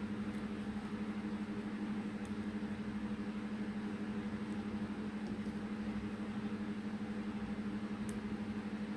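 A steady low hum at one even pitch, as of a motor or appliance running in the room, with a few faint ticks.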